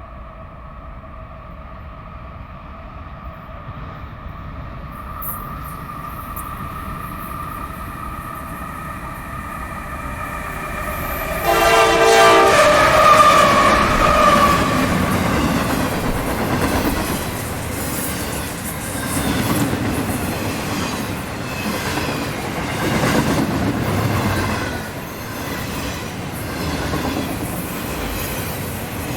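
Train approaching with its air horn sounding a long, steady chord that grows louder. About twelve seconds in the train reaches the microphone and the horn peaks and fades, then the train rumbles past with its wheels clacking over the rail joints.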